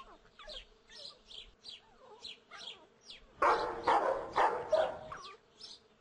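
Dog barking: faint short yips through the first half, then about four louder barks about halfway through.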